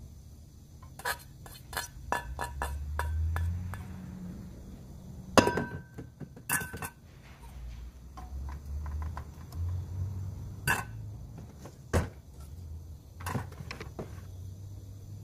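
A metal utensil clinking and tapping against a metal mixing bowl while ingredients are stirred: irregular quick taps, with a few louder ringing strikes about five, six and a half, eleven and twelve seconds in.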